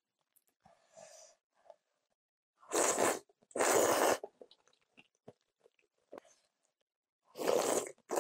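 A person slurping kalguksu noodles and broth: two slurps close together about three seconds in and another near the end, with soft chewing between them.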